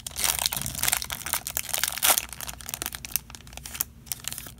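Foil wrapper of a Bowman Mega Box trading card pack being torn open and crinkled in the hands, a dense crackling that stops about four seconds in.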